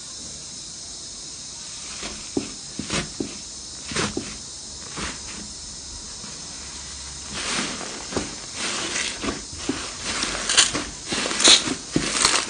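Slime being squeezed and worked by hand, with sticky clicks and crackles as air pockets pop, scattered at first and coming thick and fast from about halfway, over a steady hiss.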